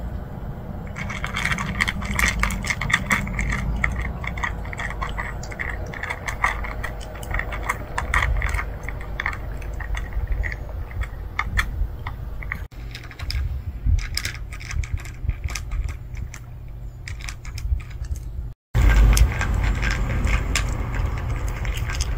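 Cats crunching dry kibble from a plastic tray: a rapid, irregular clatter of chewing and pellets clicking against the plastic, over a steady low rumble. Near the end it cuts out for a moment and resumes as one cat crunching kibble from a bowl.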